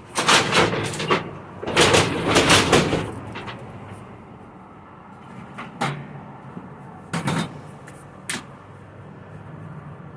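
Accordion storm shutter being slid along its track, two rough rattling, scraping runs in the first three seconds, then a few sharp clacks of the panels.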